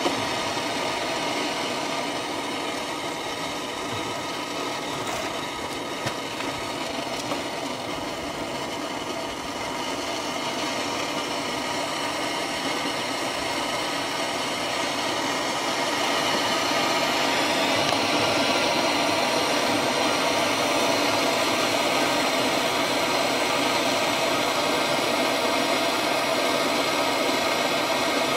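Handheld propane torch burning with a steady hissing flame, heating a rusted, seized stud on the engine block to free it. It grows louder a little over halfway through.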